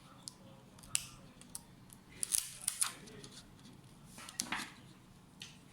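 Light clicks and two short spells of scratchy scraping from small hard parts being handled, typical of work on a laptop's case and components.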